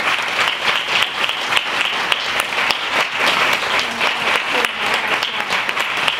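Audience applauding steadily, many hands clapping at once at the end of a talk.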